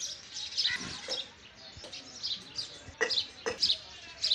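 Small birds chirping: short, high calls repeating several times a second. Two louder, sharper sounds stand out about three seconds in.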